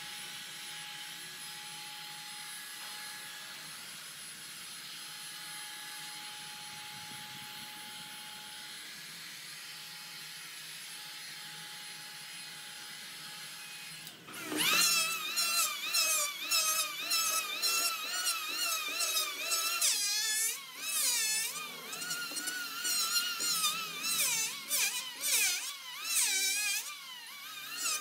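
A heat gun blowing steadily for the first half, then, about halfway through, an electric hand planer starts up loud and cuts across the cured epoxy and wood, its whine wavering up and down as the blades bite and ease off.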